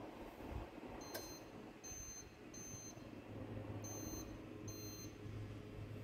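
Changhong CSC-18T1 split air conditioner's indoor unit, fitted with a universal replacement control board, beeping four short high beeps in two pairs as it takes commands from an infrared remote app. A click comes about a second in, and the unit's fan hums steadily underneath.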